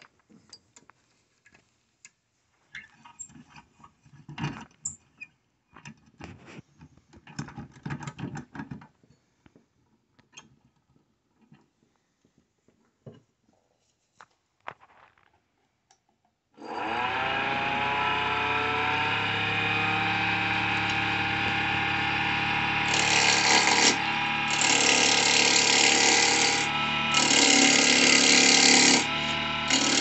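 Scattered knocks and clicks as a cedar blank is fitted between the centres of a wood lathe. About halfway through, the lathe motor starts and spins up to a steady running hum. From about two-thirds in, a turning gouge cuts into the spinning octagonal cedar blank, loud stretches of cutting broken by short pauses.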